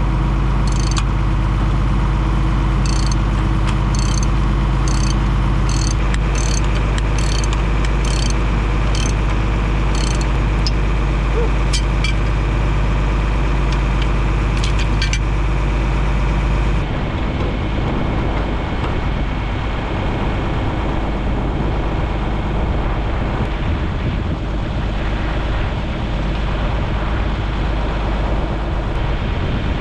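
Farm machine's engine idling steadily, left running so fresh chain lube works into the chains, with a light click about every half second to a second. Near the middle the sound changes abruptly to a rougher rumble with wind on the microphone.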